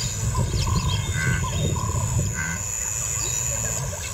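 Bush ambience: birds chirping in short calls, over a steady high-pitched tone and a loud low rumble.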